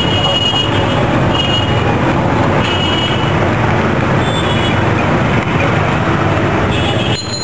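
Steady, loud background noise of street traffic, with brief high-pitched tones recurring every second or so.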